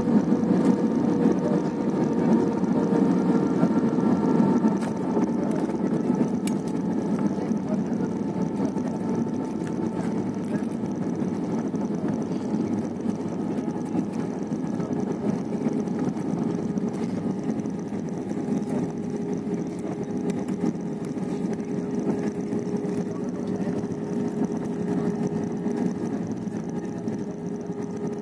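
Jet airliner cabin noise on the landing roll: a steady rumble of engines and rushing air with faint steady tones. It is loudest for about the first five seconds, then eases to a lower, even rumble as the aircraft slows on the runway.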